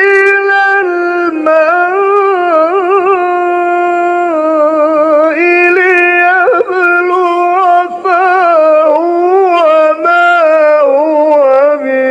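Male Quran reciter chanting in the melodic mujawwad style. A high male voice holds long notes with wavering, ornamented melismas, with short breaks between phrases.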